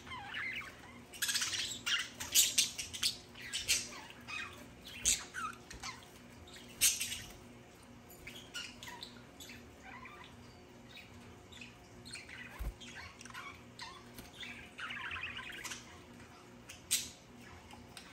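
Budgerigars chirping and squawking: a quick run of short, sharp calls in the first few seconds, then scattered chirps with a brief burst of chatter near the end.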